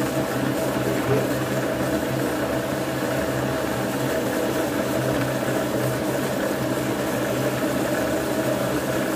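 Thermomix-style kitchen robot running a programmed cooking cycle, its motor stirring peppers, onions and tomatoes in the heated steel jug: a steady, even hum.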